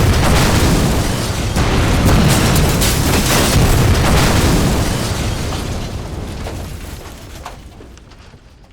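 Explosion sound effect of a death-ray blast: a long, loud rumbling boom full of crackles that dies away over the last few seconds. Music plays underneath.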